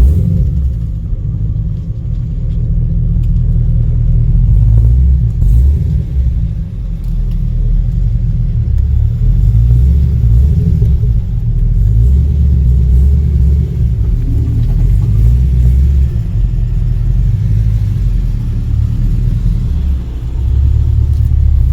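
Chevrolet Camaro SS V8 engine and exhaust running with a steady low rumble while the car is driven, with small swells as the throttle changes.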